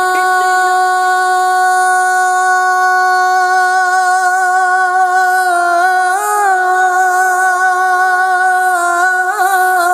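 Urdu devotional naat: a single voice holds one long sung note, with a brief turn in pitch about six seconds in and again near the end.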